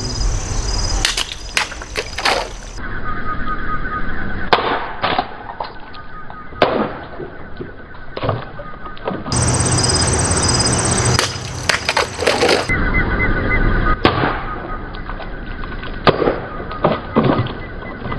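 Cold Steel Espada XL folding knife slashing through plastic bottles: a series of sharp cutting strikes, several coming in quick pairs, with insects chirping steadily behind.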